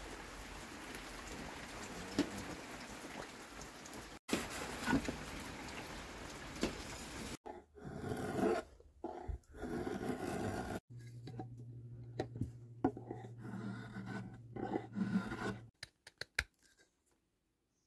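A steady rushing noise from the forge as the knife steel heats. Then a drawknife shaves strokes off a wooden handle blank, and near the end a small knife cuts the wood with a few sharp clicks.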